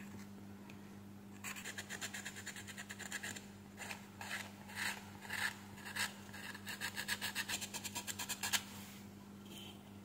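Emery paper rubbed back and forth over a remote control's circuit board tracks in a quick run of scratching strokes, sanding the coating off the LCD connector tracks. The strokes start about a second and a half in and stop shortly before the end, over a faint steady hum.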